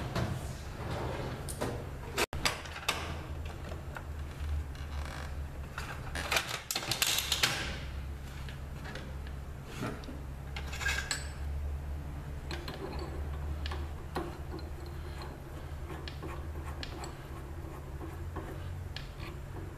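Scattered clicks and light metallic clatter of hands working the drill press's chuck and bit, over a steady low hum.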